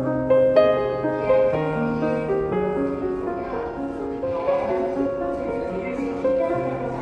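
Background music: a gentle piano-led instrumental playing steady held notes.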